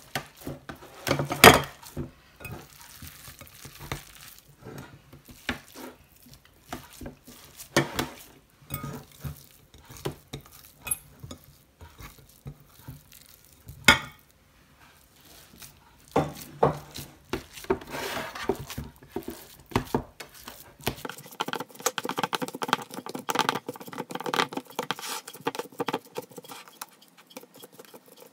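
Hands scooping a wet, crumbly fish loaf mixture out of a glass mixing bowl and pressing it into a metal baking tray: irregular soft patting and scraping, with a few sharp knocks of bowl or tray, the loudest about a second and a half in. The patting becomes steadier over the last several seconds as the mixture is pressed flat.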